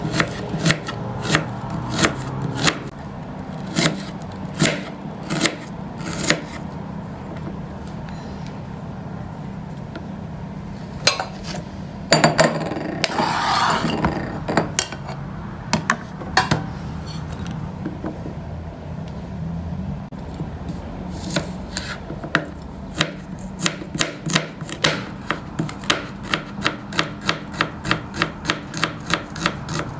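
Kitchen knife slicing red onion and garlic on a plastic cutting board: scattered strokes at first, then a scrape of about two seconds as the sliced onion is pushed off the board into a glass bowl. From about two-thirds through comes a quick, even run of chops, roughly three a second, over a steady low hum.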